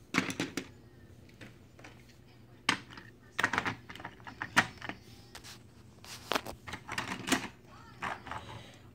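Irregular clicks and clacks of plastic toy trains and track pieces being handled and moved about.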